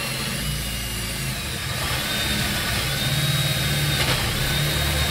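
Ryobi cordless drill running under load as it bores up into a timber shelf rail. The motor's whine holds steady, then rises in pitch about two seconds in.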